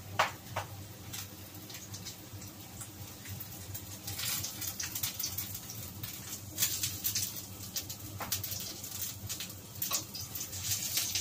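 Pork cheek sizzling and crackling as it fries in a pan on a gas stove, the crackle growing denser after a few seconds, with knocks and clatter of pans and a lid being moved. A couple of sharp clicks near the start, over a steady low hum.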